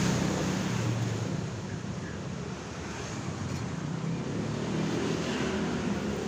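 Steady traffic noise: a continuous rumble of vehicle engines with a broad hiss over it.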